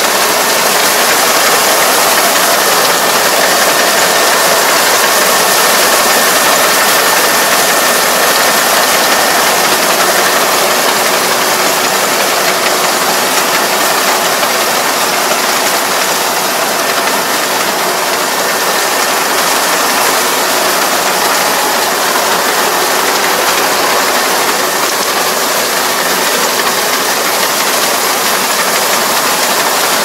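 Kubota ER470 combine harvester running steadily while harvesting rice: a continuous dense mechanical clatter of engine and working mechanism, with a faint steady whine.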